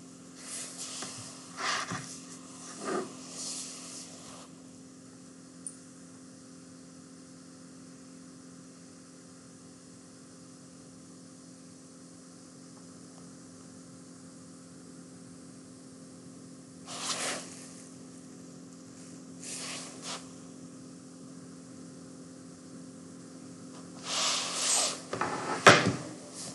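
Room tone through a desk microphone: a steady low hum, broken by a few short soft noises in the first few seconds, two more past the middle, and a louder cluster near the end.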